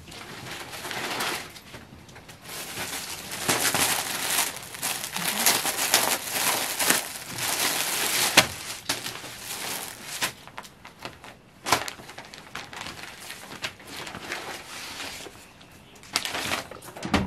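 Cloth and paper rustling and crinkling as unstitched suit fabric is lifted, folded and laid out, loudest for several seconds in the middle, with a few sharp clicks.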